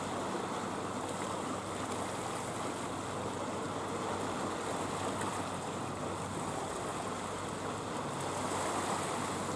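Seawater washing and lapping at a rocky shore: a steady, even rush with no distinct splashes.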